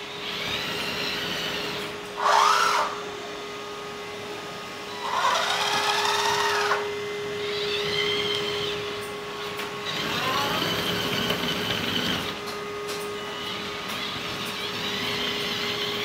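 1/14 RC hydraulic excavator (LESU Komatsu PC360) running. A steady motor hum sits under about six whining bursts that rise and fall in pitch as the electric motors speed up and slow down to move the machine.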